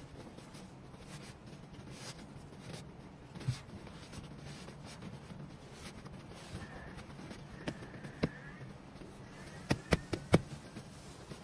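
Seat cover being pulled over and smoothed onto a car seat by hand: faint rustling and rubbing, with a few sharp taps. One tap comes about three seconds in and a cluster comes near the end.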